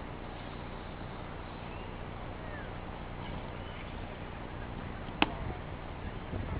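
Swords striking once in sparring: a single sharp clack about five seconds in, over a steady outdoor background hiss with a few faint bird chirps.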